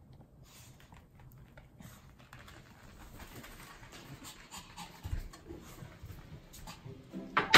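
Pomeranian dog panting, with a sharp knock near the end.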